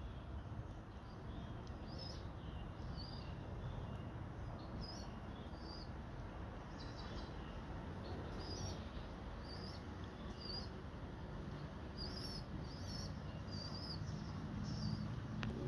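Small birds chirping: short high chirps repeating every half second or so, over a steady low background noise.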